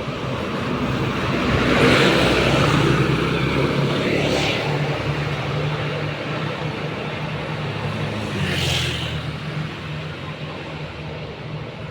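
A large bus's diesel engine running as the bus pulls out, swelling louder about two seconds in. Two short hisses break in, about four seconds in and again near nine seconds.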